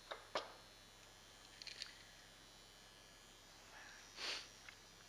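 Faint clicks and small taps of parts being handled, two sharper ones right at the start, and a short sniff about four seconds in, over a faint steady hum.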